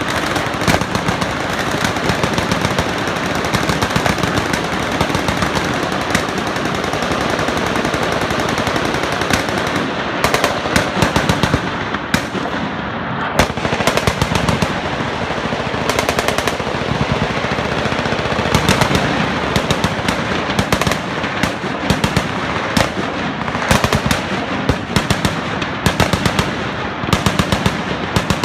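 Several machine guns firing at once in continuous, overlapping bursts of automatic fire.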